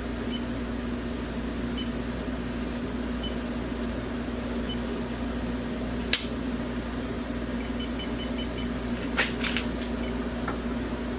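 Electronic refrigerant leak detector on high sensitivity ticking with faint high beeps at a slow pace, about one every second and a half, with a brief quicker run about eight seconds in, over a steady hum. The slow ticking shows no leak being picked up at the expansion valve. A sharp click about six seconds in and another about nine seconds in.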